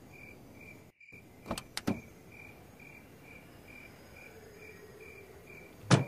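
Crickets chirping steadily, about two chirps a second, over a quiet night background. A few faint clicks come about a second and a half in, and a sharper knock sounds near the end.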